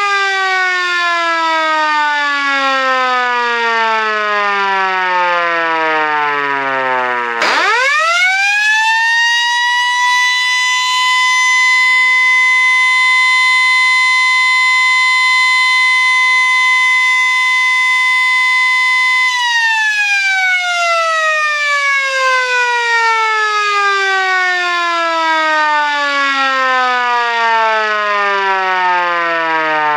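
Sterling F2 electromechanical siren sounding a German siren signal. It winds down, spins back up quickly to a steady tone held for about twelve seconds, then coasts down again in a long falling wail.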